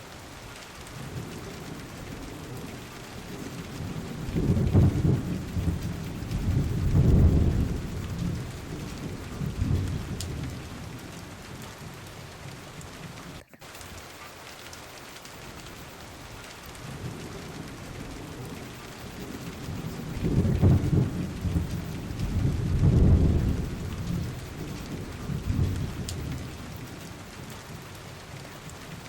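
Steady hiss of rain with two low rolls of thunder, one a few seconds in and one about two-thirds through, each swelling and fading over several seconds. The sound cuts out for an instant about halfway through, like the seam of a looped rain track.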